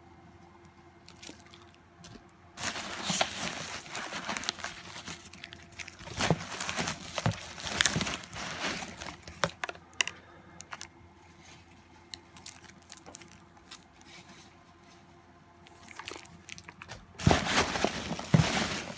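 Plastic bag and bubble wrap around spray paint cans crinkling and rustling as the cans are handled and unwrapped. The crinkling comes in two spells: a long busy stretch starting a few seconds in, and a louder burst near the end.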